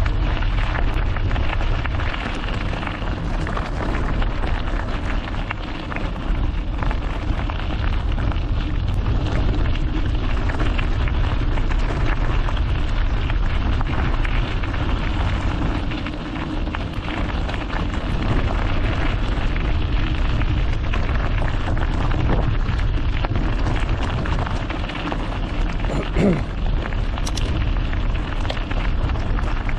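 Mountain bike rolling along a gravel trail: a steady crackling rush of tyres on loose stones and the bike rattling, heard through a GoPro action camera. A brief squeak comes near the end.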